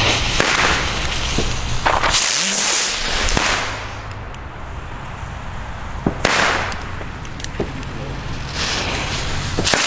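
Rising ground spinners (Brummkreisel fireworks) lit one after another with a jet torch lighter, each spin-up and lift-off a burst of loud hissing. There are four such bursts and a few sharp pops.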